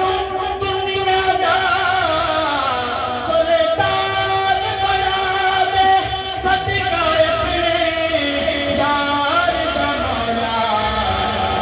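A man singing a Punjabi devotional song, with long, wavering held notes and slides between pitches.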